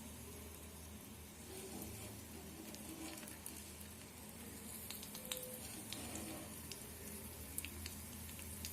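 Crushed garlic, shallot and peppercorns frying in coconut oil in a pan: a faint, steady sizzle with scattered small crackles, a few more of them in the second half.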